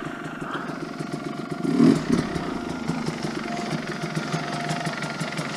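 Off-road motorcycle engine idling with a fast, even putter, swelling briefly about two seconds in.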